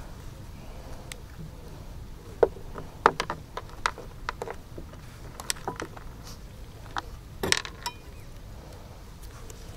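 Irregular light clicks and knocks, with a louder clatter about seven and a half seconds in, over a steady low rumble.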